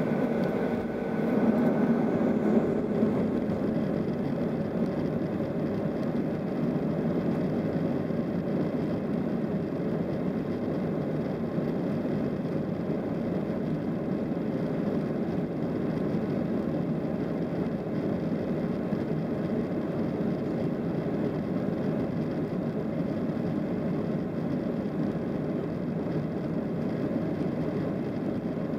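Cabin noise of a Boeing 737-700 taxiing with its CFM56-7B engines at low thrust: a steady, even rush with no rise in engine pitch.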